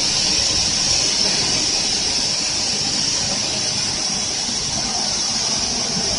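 Steady machinery noise of a running plastic pelletizing line: the die-face pelletizer with its cutter drive motor and the water pump running together, a constant high hiss over a low rumble.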